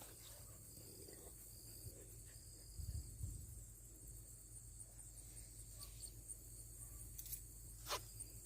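Faint outdoor background: a steady high-pitched insect drone over a low rumble, with a dull bump about three seconds in and a sharp click near the end.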